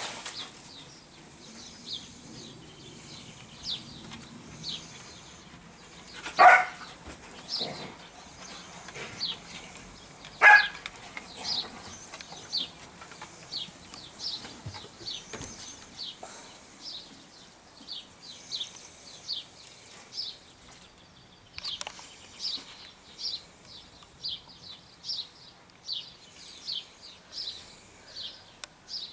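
A dog barking twice, sharp single barks about six and ten seconds in, over a small bird's high, falling chirps repeated steadily every second or so.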